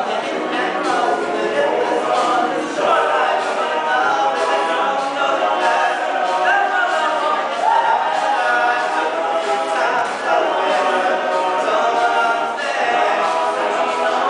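Men's a cappella group singing, a lead voice carried over the group's backing vocals without instruments.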